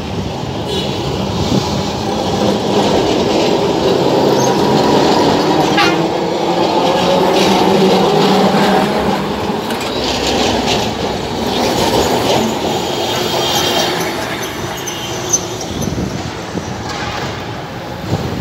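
Old two-car electric street tram rolling past close by: its wheels rumble on the rails, loudest about a third of the way in and fading toward the end, with several brief high-pitched wheel squeals.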